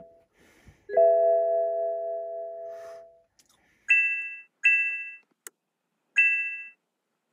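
Electronic warning chimes from the car's instrument cluster. A low, multi-tone gong sounds about a second in and rings out over about two seconds, followed by three short, higher chimes.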